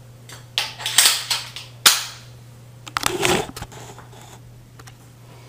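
A few sharp clicks and knocks of hardware and hands being handled, the sharpest about two seconds in and a duller knock about three seconds in, over a steady low hum.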